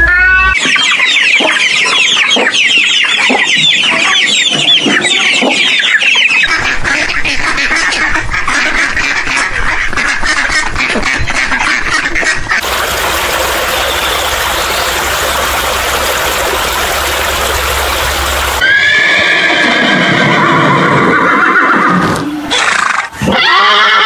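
A run of edited-together animal sounds: rapid high-pitched chirping in the first half, a steady hiss-like stretch in the middle, then a horse whinnying in the last few seconds.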